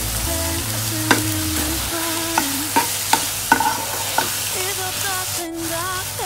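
Frog pieces and curry paste sizzling in a frying pan as a spatula stirs them, scraping and knocking against the pan several times. Background music plays underneath.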